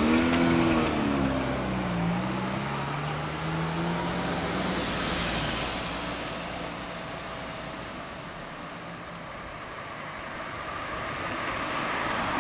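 Mazda RX-8's two-rotor Renesis rotary engine pulling away, its note rising and falling a few times and then fading as the car drives off. Other traffic swells near the end.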